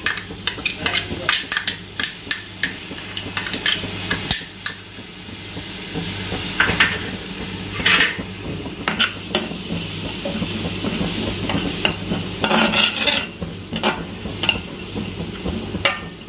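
A steel spoon stirring and scraping damp carom seeds (ajwain) around a hot stainless steel wok: irregular clicks and scrapes of metal on metal, with a light sizzle as the salt-water-dampened seeds dry out.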